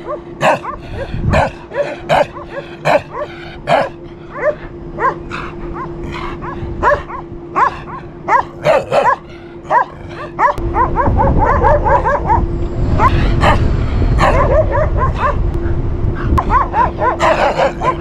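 A dog barking repeatedly at the camera, short sharp barks about once a second, coming in quicker runs in the second half. A low rumble joins about ten seconds in and runs under the barking.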